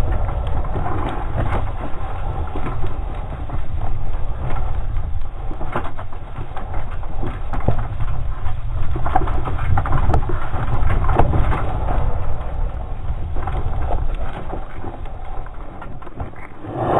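Wind buffeting an on-board action camera's microphone as a mountain bike rides down a rocky trail, with frequent rattles and knocks from the bike and its tyres hitting stones. A louder burst of rattling comes near the end.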